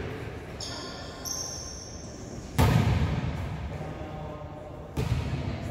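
Indoor volleyball play in a gym: short high squeaks, like sneakers on the court, about a second in, then a sudden loud thump about two and a half seconds in and another near the end, each ringing on in the hall's echo.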